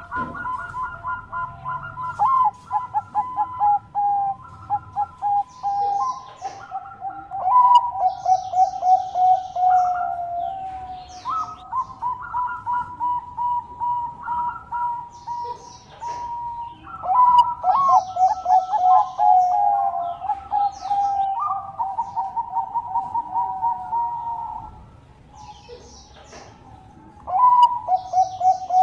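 Bangkok-strain perkutut (zebra dove) singing: repeated phrases of quick staccato coos running into long trills, with faint higher chirps between them. The song breaks off briefly near the end, then starts again.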